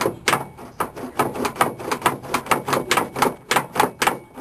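The freshly greased door latch mechanism of a Chevrolet K5 Blazer being worked over and over by hand: quick metal clicks, about five a second, with the latch moving smoothly.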